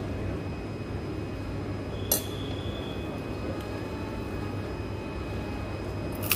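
A single sharp clink of a metal fork against a ceramic dinner plate about two seconds in, ringing briefly, with another click near the end, over a steady low room hum.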